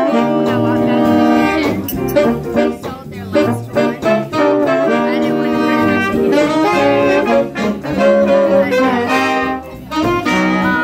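Jazz big-band horn section of saxophones, trumpets and trombones playing together in held chords that change every second or so, loud throughout.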